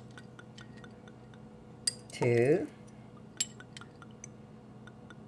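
Light clinks and ticks of a glass oil bottle and a metal measuring spoon as olive oil is poured out spoon by spoon over a steel bowl, with one short vocal sound from the cook about two seconds in.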